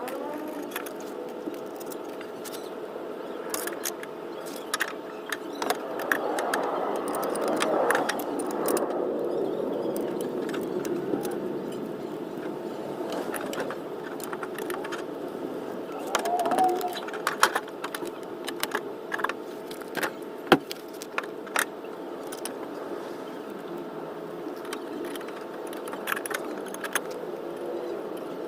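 Scattered sharp metallic clicks and clinks of hand tools and car parts being handled during brake and suspension work, over a steady background hum.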